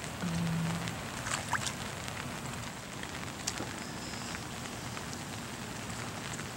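Heavy rain falling on a flooded street and standing water: a steady hiss with scattered small splashes and ticks. A brief low hum sounds just after the start.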